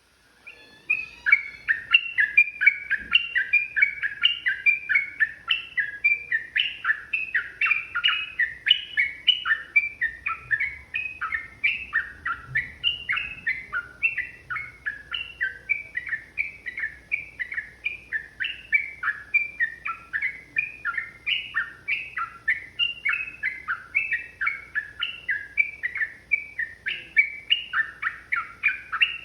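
Yellow-vented bulbul (trucukan) singing a long, unbroken run of quick, bubbly phrases, the 'ropel' song used to provoke other bulbuls into singing; it starts about a second in.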